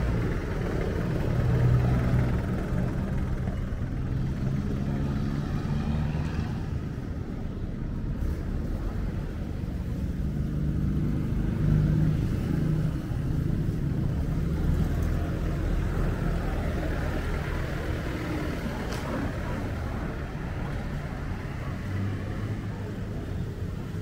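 Street traffic: motor vehicle engines running, a steady low rumble with a shifting engine hum.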